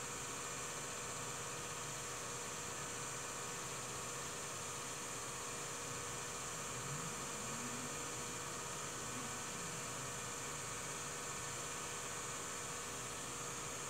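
Steady electrical hum with hiss, unchanging throughout, with no other sound: the background noise of an old film transfer.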